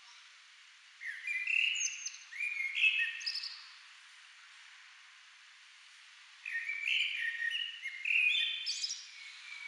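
Common blackbird singing: two fluty, warbling phrases about three seconds apart, each ending in a thin, higher twitter.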